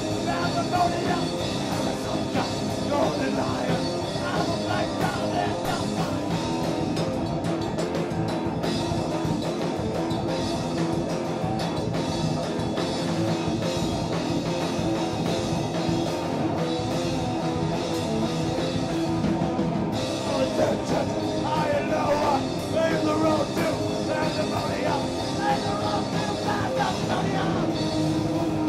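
Live rock music from a drum kit and an electric guitar played through amplifiers: a continuous guitar part over drums and cymbals.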